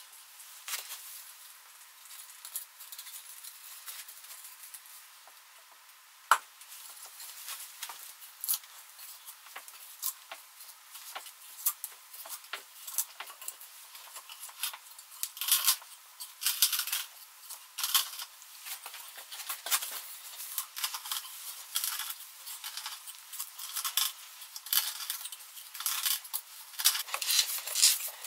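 Homemade hand auger, a spiral wood auger bit turned by a stick through a nut on its shank, boring into the end grain of a log round. The bit scrapes and crunches as it cuts chips, in repeated strokes with each turn, louder and about once a second in the second half. There is one sharp knock about six seconds in.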